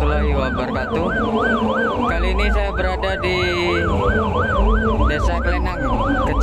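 Police patrol car siren wailing in a fast rising-and-falling yelp, about two sweeps a second. Deep bass from a carnival sound system thumps underneath.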